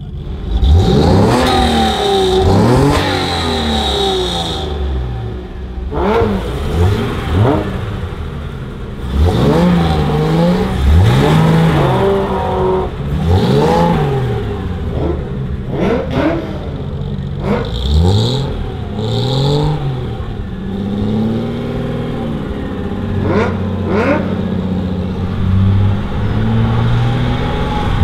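1955 Mercedes-Benz 300SL Gullwing's fuel-injected 3.0-litre straight-six revved over and over in short blips, the pitch rising and falling each second or two. For the last several seconds it settles into a steadier run, with a few sharp clicks.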